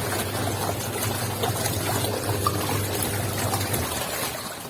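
Semi-automatic washing machine running a wash: water churning and sloshing in the tub over a steady motor hum. The hum dies away about four seconds in.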